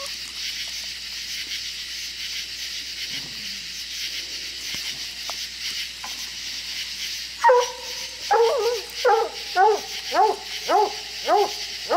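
Coonhound puppies barking at a treed raccoon: from about halfway through, a run of short, high yipping barks comes about twice a second, over a steady high hiss.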